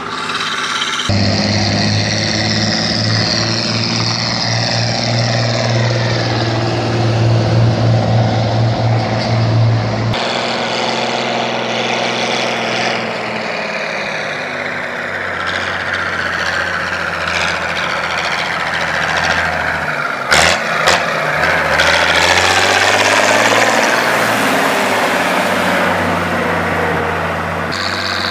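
Fiat 1300 DT tractor's six-cylinder diesel engine running under load. The note is steady and deep at first and changes abruptly at a cut about ten seconds in. After that it rises and falls, with a couple of sharp knocks about twenty seconds in.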